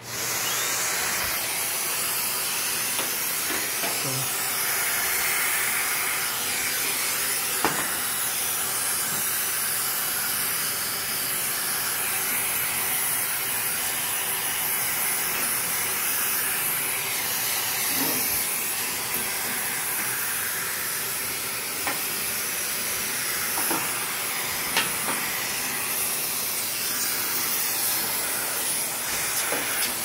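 Vacuum cleaner running with a steady hiss, starting suddenly at the very beginning, its flexible extension hose sucking lint off a clothes dryer's mesh lint screen. A few faint clicks sound along the way.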